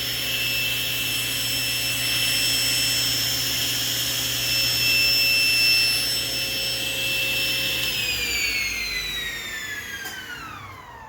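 Laguna Fusion F2 table saw running at full speed with a steady whine, then switched off about eight seconds in and winding down in falling pitch over about three seconds. The quick run-down sounds to the owner like the saw has a brake.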